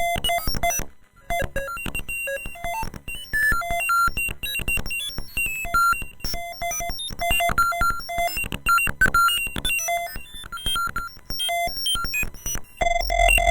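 Rapid sequence of short synthesized electronic tones, several a second, each a clean single pitch with a click at its start, hopping among notes of a harmonic series. The sound gets louder near the end, with a low bass coming in.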